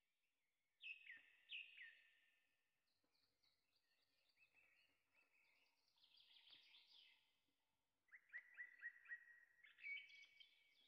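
Faint bird song: two falling whistled calls about a second in, then scattered chirps, and quick runs of repeated trilled notes near the end.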